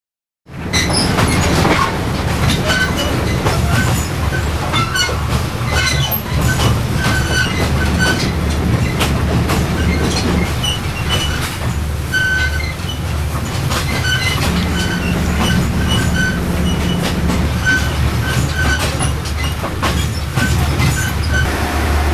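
Sleeper train running on the rails: a steady low rumble with frequent rattling clicks and brief high squeaks. It starts abruptly about half a second in.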